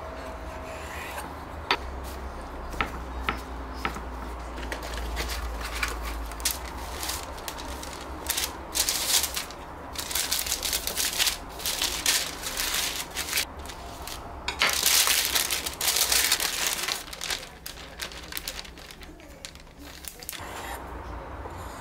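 Cooking paper crinkling and rustling in bursts as a salmon fillet is wrapped in it, after a few sharp knife knocks on a wooden cutting board in the first seconds.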